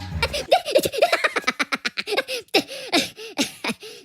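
A person laughing in a long string of quick, pitched bursts.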